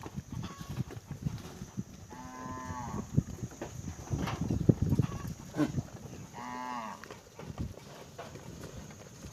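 A livestock animal gives two drawn-out calls, a longer one and then a shorter one a few seconds later, over irregular knocking and clattering from animals moving in a pen.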